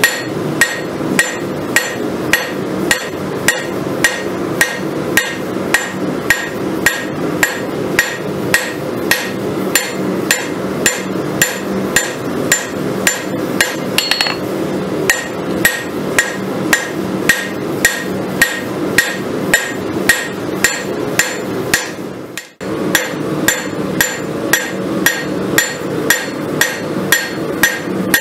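Hand hammer striking red-hot steel on an anvil in a steady rhythm of roughly two blows a second, each blow with a ringing anvil tone, as a farrier's rasp is forged out into a kukri blade. A steady low noise runs underneath, and the blows pause briefly once about 22 seconds in.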